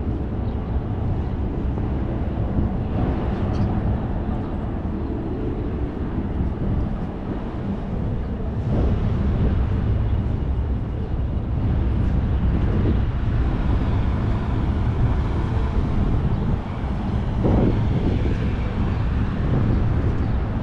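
City street ambience: a steady rumble of passing road traffic.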